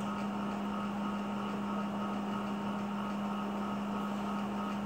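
A steady low electrical hum with an even hiss, unchanging throughout; no distinct cutting strokes stand out.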